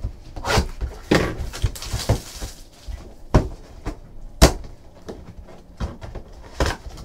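Cardboard trading-card box, a 2015 Topps Supreme football box, handled and opened by hand on a table: several sharp knocks and taps of the box, with a stretch of crinkling wrapper about two seconds in.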